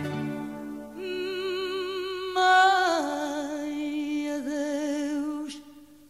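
Sung Portuguese song: a singer holds long, wavering vibrato notes with no words, over a low steady accompaniment. The voice jumps to a higher, louder note about two and a half seconds in, settles on a long held note, then fades away near the end.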